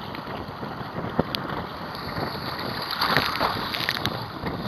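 Wind buffeting the microphone of a camera mounted on a sea kayak's bow, with choppy water splashing against the hull. About three seconds in, a louder rush of water as a wave washes over the bow.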